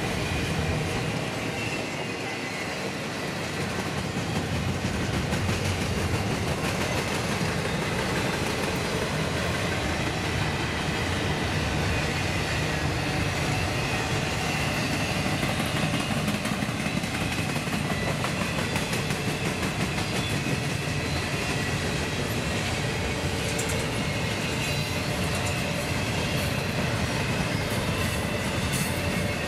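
Double-stack intermodal freight cars rolling past at steady speed: a continuous rumble of steel wheels on rail, with faint high ringing tones over it.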